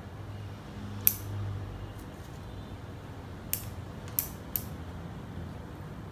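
Bonsai pruning shears snipping through small branches: four sharp snips, the loudest about a second in, then three close together past the middle.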